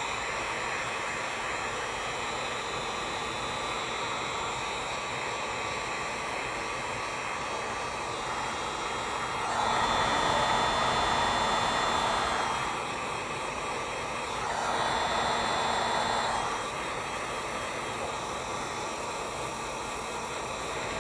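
Electric heat gun running on its high setting, a steady blowing hiss with a thin steady whine, swelling louder twice around the middle. It is softening vinyl wrap on a metal grill bar.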